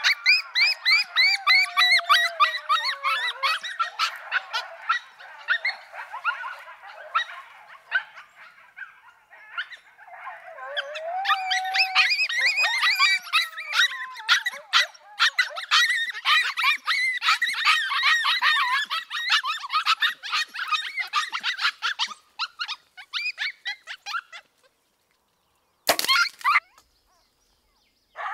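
A pack of coyotes yipping and howling together, with long howls sliding down in pitch among rapid yips; the chorus dips briefly, swells again and dies away after about twenty-four seconds. A single gunshot follows a couple of seconds later.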